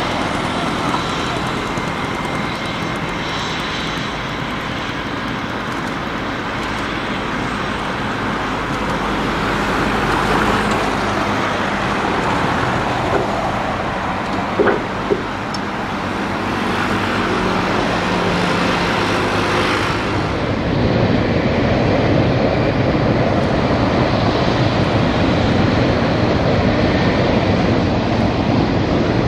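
Several AT-3 jet trainers taxiing, their twin turbofan engines running steadily at low power. The noise grows louder about two-thirds of the way through, with two short knocks shortly before that.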